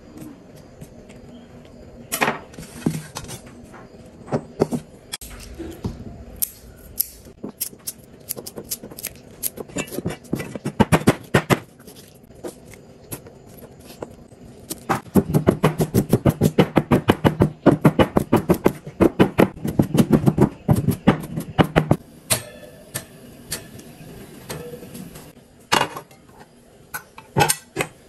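Kitchen knife chopping garlic on a plastic cutting board. There are scattered taps at first, then a long quick run of steady chops, about five or six a second, in the second half.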